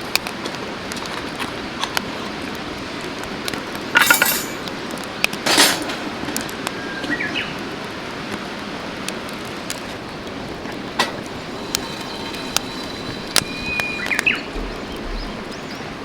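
Steady rush of a mountain stream, with scattered light clinks and taps of camp gear, two short noisy bursts about four and five and a half seconds in, and a few brief bird calls.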